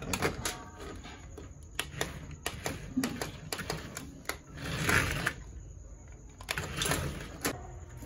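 A toy RC car's small electric drive motor and plastic gearbox run in short bursts, whirring and rattling with a run of sharp clicks. The longest bursts come about five seconds in and again near seven seconds.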